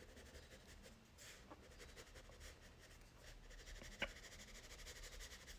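Faint scratching of a black Crayola crayon drawing short strokes on paper, with one sharper tick about four seconds in.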